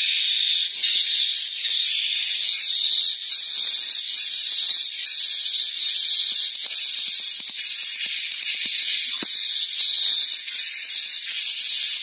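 Swiftlet calls played through a pair of horn tweeters: a loud, steady, high-pitched twittering that repeats its chirps about one and a half times a second. It is the lure sound played in a swiftlet house to draw swiftlets in to roost and nest.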